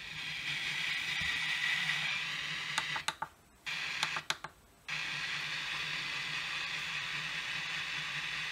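FM radio static from the speaker of a Milwaukee M12 radio on a poorly received station: a steady hiss with a low hum. It cuts out twice, about three and four seconds in, with a few clicks as the tuning buttons are pressed, then the hiss comes back.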